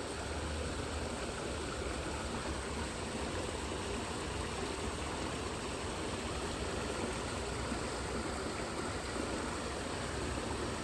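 Creek running high and fast after heavy rain: a steady rush of flowing water.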